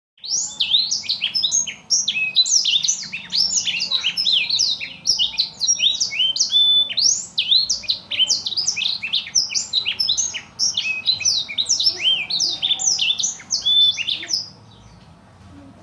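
Black-throated canary (blackthroat) singing a fast, unbroken run of high sweeping notes, the rapid-fire 'tembakan' song kept as a master for training other songbirds; it stops about a second before the end.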